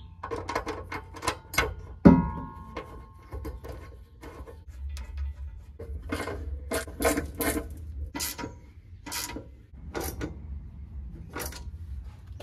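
Metal clicks and knocks of a ratchet wrench and socket on the bolts of a steel air tank being fastened under a van floor. One sharp metallic clank rings on briefly about two seconds in, and a run of separate strokes follows from about six seconds in.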